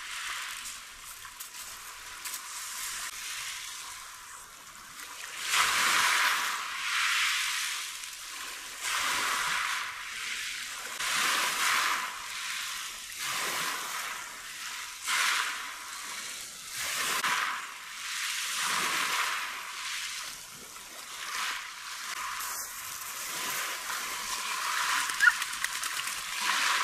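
Sea water splashing and sloshing in the shallows, swelling and fading every second or two as small waves wash over a pebble shore and a dog wades through them. A short sharp sound stands out near the end.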